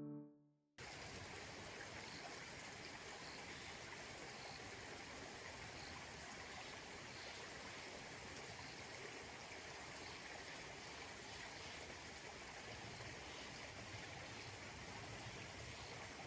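Mountain stream flowing: a steady rush of water that cuts in about a second in, just after piano music fades out.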